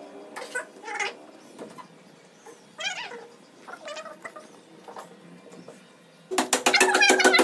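A cat meowing several times in short, separate calls that bend in pitch. Near the end a loud, fast rhythmic passage cuts in.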